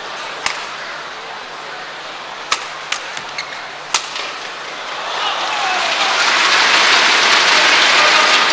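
Badminton racket strikes on a shuttlecock during a rally, a handful of sharp cracks in the first four seconds. From about five seconds in, arena crowd applause swells and stays loud.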